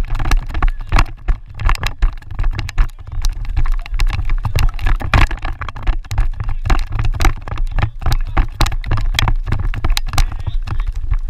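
Wind buffeting an outdoor microphone, a heavy uneven rumble with frequent sharp knocks and crackles.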